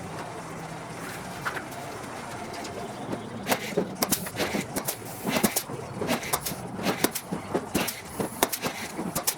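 Blind rivets being set into aluminium wing skin with a rivet gun: irregular sharp snaps, several a second, some in quick pairs, starting about three seconds in over a steady hiss.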